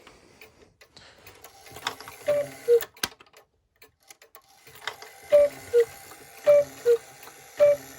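GHS spring-driven cuckoo clock calling cuckoo: repeated two-note calls, a higher note then a lower one, about one call a second after a short pause, with mechanical clicks from the strike train as the chime is set off.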